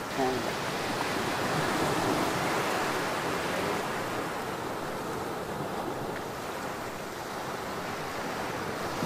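Steady rushing wash of surf on a sandy beach, with some wind, swelling a little in the first few seconds.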